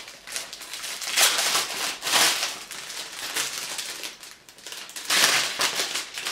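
A clear plastic bag crinkling and rustling as hands peel its sealed top open and pull it apart, in several bursts: about a second in, about two seconds in and about five seconds in.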